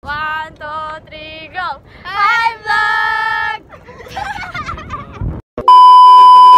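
Young girls' voices singing a few short high phrases and a held note, then talking and laughing. Near the end a loud steady test-tone beep, the kind that goes with TV colour bars, cuts in and is the loudest sound.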